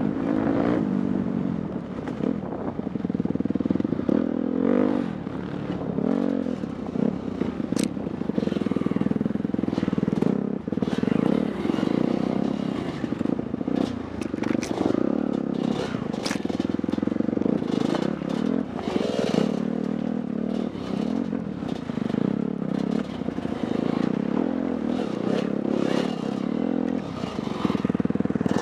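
Dirt bike engine running and revving up and down while riding, with clatter and knocks as the bike bounces over rough ground.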